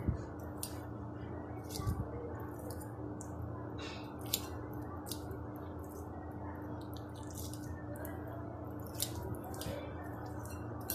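Fork mashing boiled potatoes in a glass bowl: soft squishing with irregular light clicks of the fork tines against the glass, over a steady low hum.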